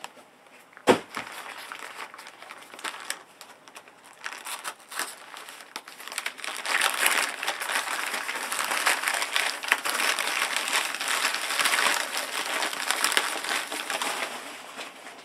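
Newspaper packing being unwrapped and crumpled by hand: a crinkling and rustling that grows louder and busier about halfway through and dies down near the end. A single sharp knock about a second in.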